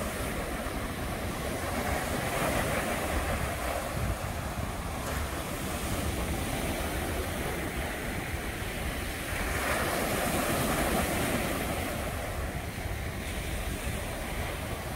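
Steady rushing noise of wind and surf, swelling a little about two seconds in and again about ten seconds in.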